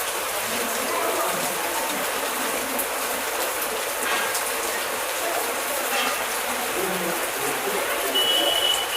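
Heavy rain falling steadily, an even hiss. A steady high-pitched tone starts near the end.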